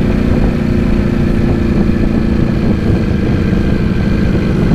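Motorcycle engine running at a steady cruise, heard from on board the moving bike, with low rumble underneath and no rise or fall in pitch.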